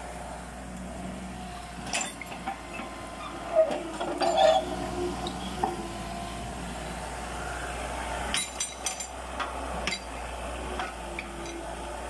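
Mini excavator's diesel engine running steadily as the machine digs soil. Sharp clanks and knocks from the bucket and arm come about two seconds in, again around four seconds (the loudest), and in a quick cluster near nine seconds.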